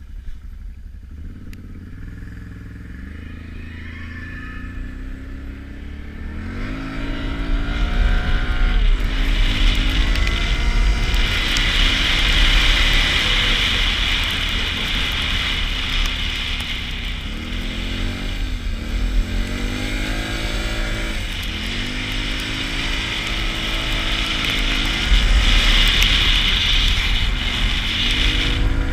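Can-Am Renegade 570 ATV's V-twin engine pulling through snow, quieter for the first few seconds, then rising and falling in pitch again and again as the throttle is opened and eased off. A steady hiss rides on top from about ten seconds in.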